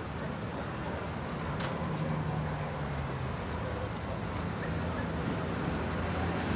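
City street traffic noise: a steady wash of passing vehicles with a low engine hum, and one sharp click about one and a half seconds in.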